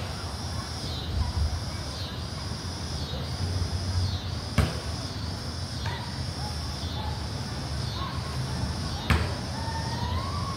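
A basketball bouncing on a concrete court: three sharp bounces about four and a half seconds apart, over a steady outdoor background hiss. Faint short high-pitched calls come in the second half.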